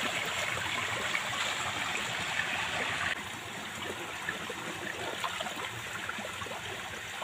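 Shallow stream running over rocks, with a plastic bucket dipped into the water and filled.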